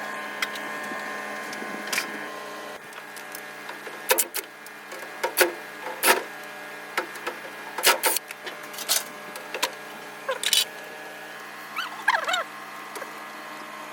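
A steady hum with many sharp clicks and knocks scattered through it, and a brief wavering squeak near the end.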